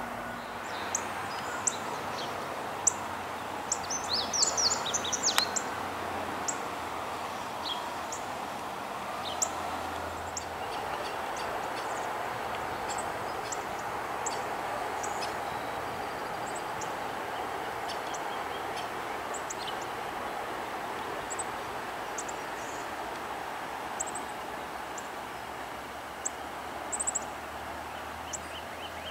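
Small songbirds chirping in short high calls, with a quick run of chirps about four to five seconds in, over a steady outdoor background noise.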